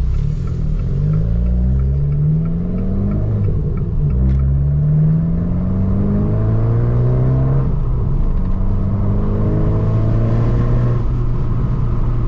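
Abarth 595 Turismo's 1.4-litre turbocharged four-cylinder accelerating hard in sport mode, its pitch rising through three gears, with two upshifts where the note drops, then settling into a steady cruise near the end.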